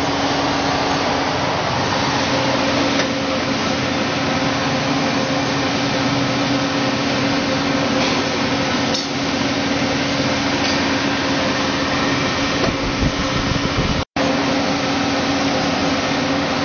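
Heat shrink tunnel of a bottle shrink-wrapping machine running: its blowers and conveyor make a steady whirring noise with a low hum. The sound drops out for an instant near the end.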